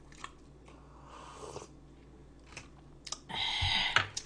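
Eating sounds from a mukbang close to the microphone: soft chewing with scattered small clicks, and a louder noisy stretch lasting under a second about three seconds in.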